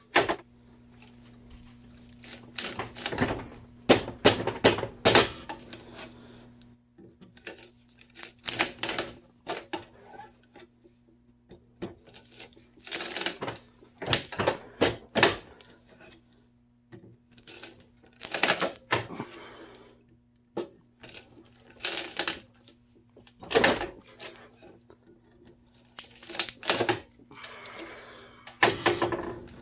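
Hand cable cutters snipping through the copper wire windings of an electric motor stator: clusters of sharp snaps and clicks every few seconds, over a steady low hum.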